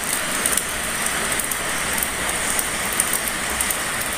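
Steady hiss of rain, with scattered faint ticks of drops.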